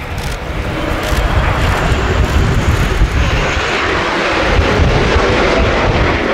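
Twin turbofan jet engines of an F/A-18D Hornet passing low on approach with its gear down, a loud jet rumble that grows over the first few seconds and then holds.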